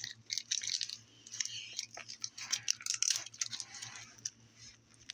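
Plastic string cheese wrapper crinkling and crackling as it is bitten and tugged at with teeth to tear it open, an irregular run of small crackles and clicks.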